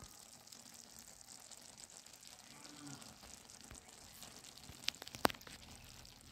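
Noodles in masala broth simmering with a faint hiss in an iron kadhai over a wood fire. About three seconds in there is a brief low call, and near the end two sharp clicks.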